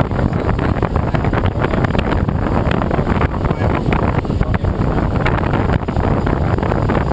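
Steady, loud rush of airflow over a Schweizer SGS 2-33A glider, gusting and buffeting on the exposed camera microphone, with no engine sound.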